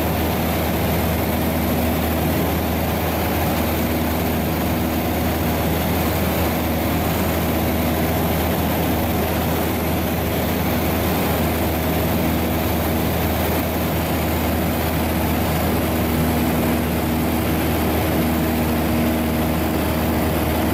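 Light high-wing propeller plane's engine and propeller droning steadily, heard inside the cabin, with a constant rush of air noise over it.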